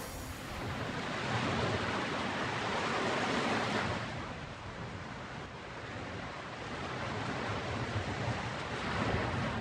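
Ocean surf breaking on a sandy beach: a steady rushing wash that swells for the first few seconds, eases around the middle and builds again near the end.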